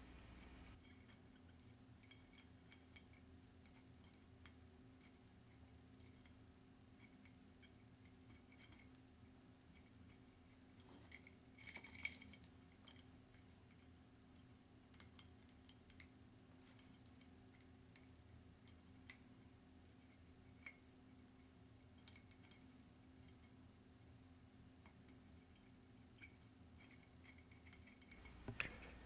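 Near silence broken by faint, scattered clicks and clinks of small Christmas-light bulbs knocking against a glass bottle as they are pushed one by one through a hole drilled in it, with a short cluster of clinks partway through.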